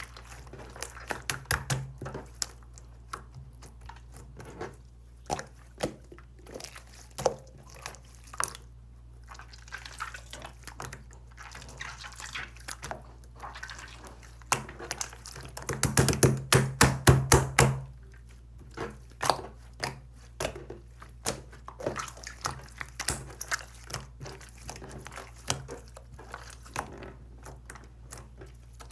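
Slime being squeezed and pressed by hand, making irregular wet, sticky clicks and pops, with a rapid run of louder pops about halfway through.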